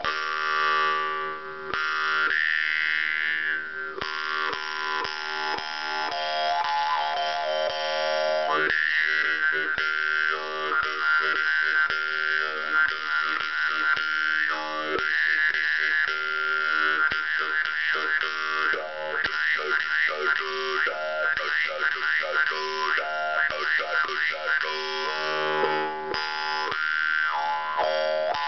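Khomus (Yakut jaw harp) played in free improvisation: a steady drone with a bright overtone melody gliding up and down above it, shaped by the mouth, over a quick plucked rhythm. The overtones move faster and wobble rapidly in the second half.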